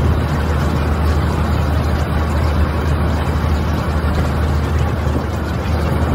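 Steady ocean-water ambience: a continuous wash of water over a deep low rumble, with no breaks.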